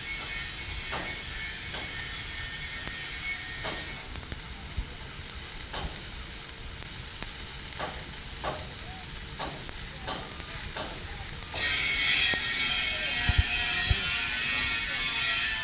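Stick welding arc crackling and sizzling steadily, with scattered sharp pops, growing louder and brighter about three-quarters of the way through.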